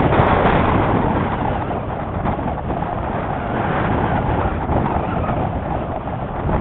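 Steady rushing airflow buffeting the microphone of a camera riding on a model aircraft in flight, with no motor tone heard.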